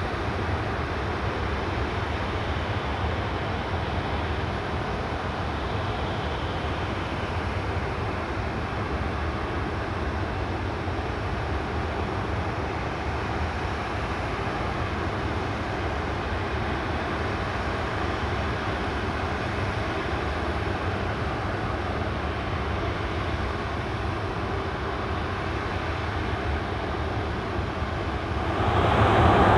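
Jet aircraft engine noise, steady for most of the time, growing louder about a second before the end.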